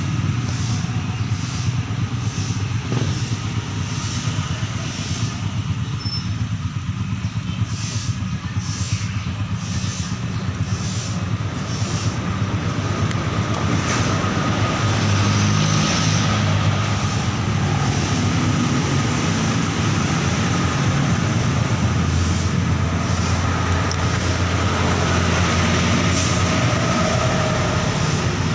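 Loud, steady mechanical rumble with a low hum, a thin steady whine and a hiss over it.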